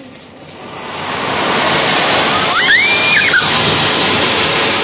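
Anar (flowerpot) firework fountain spraying sparks with a loud, steady rushing hiss that builds over the first second and a half and then holds.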